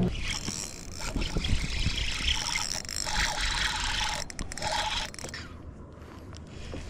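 Water splashing and trickling at the surface beside a bass boat as a hooked bass is reeled in on a spinning rod, dying down about five seconds in.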